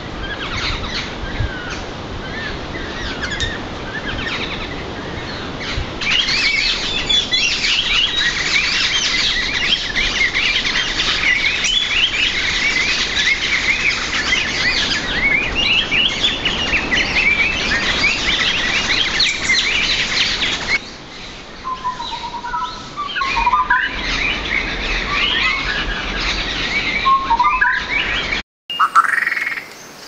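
A flock of Sri Lanka orange-billed babblers chattering with dense, high-pitched squeaky calls. The chatter thins about two-thirds of the way through, and a few lower whistled notes come in.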